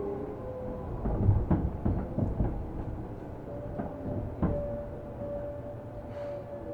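Onboard sound of a Seibu New 2000 series commuter train car: a cluster of low clunks and clanks about a second in, a few sharper clicks after, then a steady hum from the car's equipment that begins about halfway.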